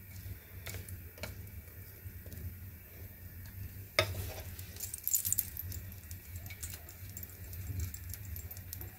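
Light clicks and clinks of a spatula and a bowl as the last cake batter is scraped out into a metal cake tin. There is a sharper clink about four seconds in, then a short run of small clinks just after.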